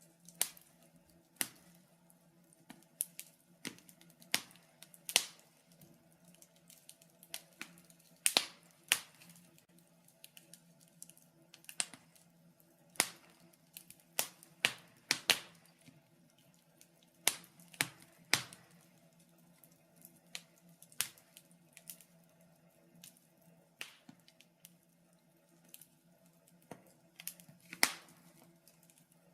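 Wood fire in a fireplace crackling: irregular sharp pops and snaps, some much louder than others, over a faint steady low hum.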